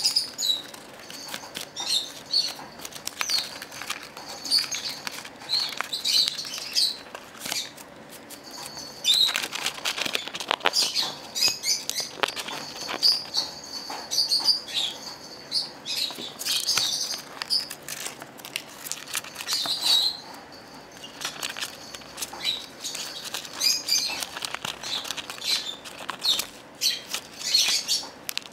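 Peach-faced lovebird chirping in short, high calls over and over while it bites and tears a sheet of paper with its beak, the paper crackling and rustling between the calls.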